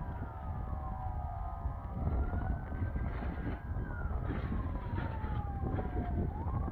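Emergency vehicle siren wailing, its single tone slowly falling, rising and falling again over several seconds, over a steady low rumble.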